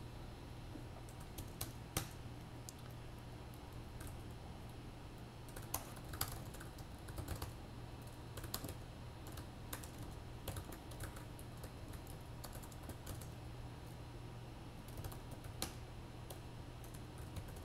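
Typing on a computer keyboard: faint, irregular key clicks in short flurries with pauses between, over a low steady hum.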